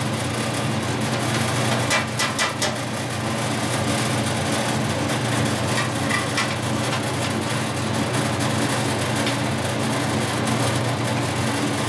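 A 1960s Boice Crane 14-inch bandsaw running with a steady motor hum and whir on its newly fitted blade. A few light metallic clicks come about two seconds in and again around six seconds.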